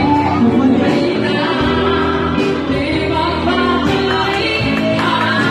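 A woman singing into a handheld microphone, amplified through a PA, over steady instrumental accompaniment.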